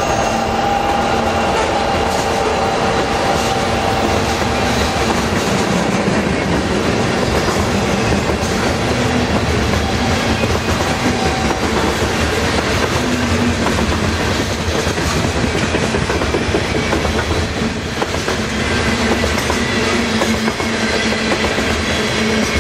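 Coal hopper cars of a long freight train rolling past: a steady rumble of steel wheels on rail with clickety-clack over the rail joints. Thin squealing tones from the wheels fade out after about six seconds.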